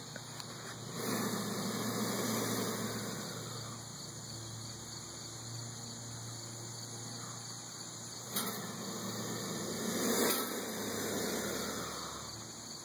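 Savannah monitor hissing defensively: two long breathy hisses, one starting about a second in and another about eight seconds in, each fading over a few seconds. It is the warning of an agitated lizard that does not want a person near it.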